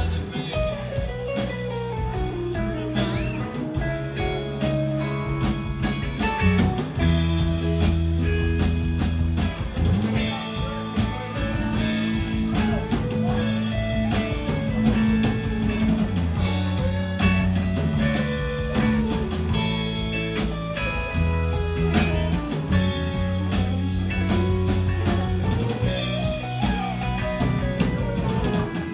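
Live rock band playing an instrumental jam: electric bass, drum kit and electric guitars, with a lead guitar line that slides up and down in pitch over a steady groove.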